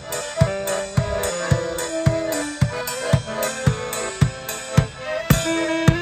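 A live band playing dance music: a drum struck on a steady beat about twice a second under sustained melody notes.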